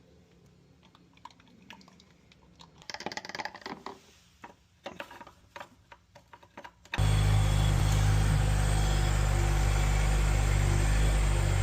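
A few light clicks and rattles of handling parts and tools, then, about seven seconds in, the Jeep Wrangler's engine cuts in abruptly, idling steadily and loudly.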